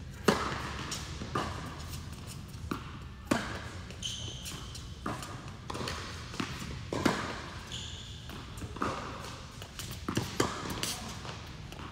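Tennis rally on an indoor court: a serve struck just after the start, then a string of sharp racket-on-ball hits and ball bounces about once a second, ringing in a large hall. Two brief high squeaks, about four and eight seconds in, are tennis shoes on the court.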